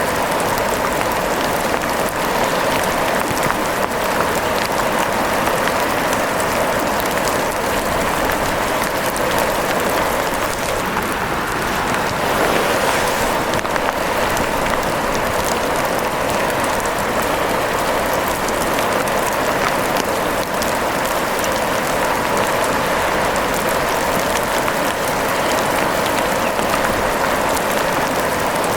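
Steady rain falling: a dense, even patter of many small drops that holds without change.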